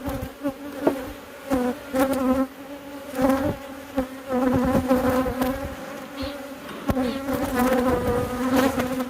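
Honeybees buzzing densely around an opened hive, the buzz wavering in pitch and swelling and easing, with a few sharp clicks mixed in.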